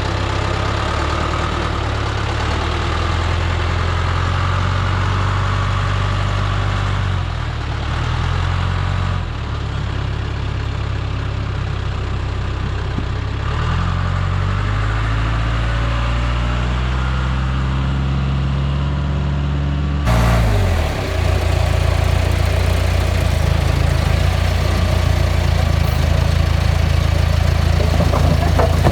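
Engine running, its pitch dipping and recovering a few times as its speed changes, with an abrupt change in the sound about two-thirds through.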